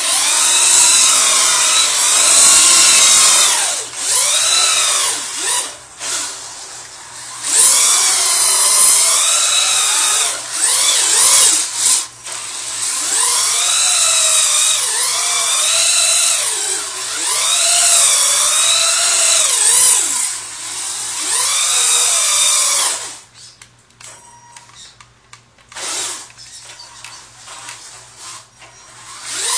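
Electric motor and drivetrain of a Duratrax Evader RC truck whining as it spins repeated donuts on wet pavement, the whine rising and falling in pitch about every two seconds. A little before the end it drops away to a faint level.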